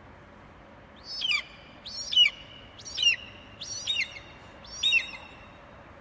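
Bald eagle calling: a series of five high, piping notes, each sliding down in pitch, a little under a second apart, starting about a second in.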